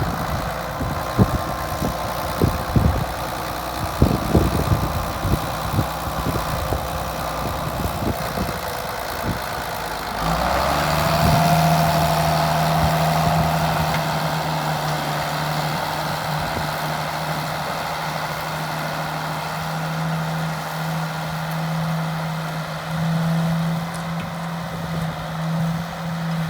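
Ford TW-15 tractor's six-cylinder diesel engine running, with irregular low thumps over the first ten seconds. About ten seconds in the engine note rises and settles into a steady drone.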